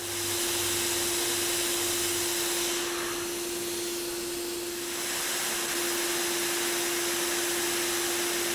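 Hot air rework station blowing: a steady hiss of air with a constant mid-pitched hum from its blower.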